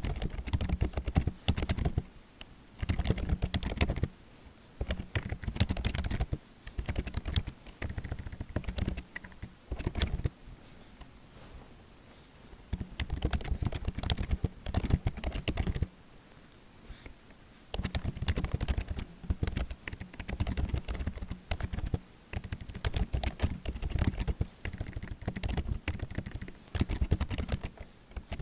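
Computer keyboard being typed on in quick bursts of rapid key clicks, with short pauses between the runs.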